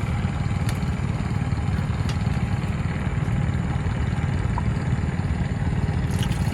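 Wind buffeting the microphone: a steady, uneven low rumble with a few faint ticks.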